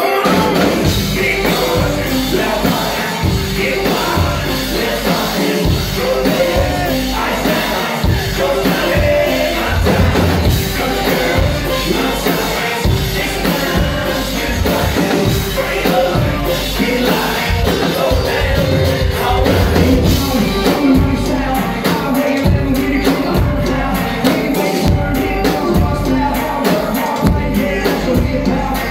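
Live country rap song played loud through a club PA: a rapper's voice on a microphone over a steady drum beat, with a fiddle.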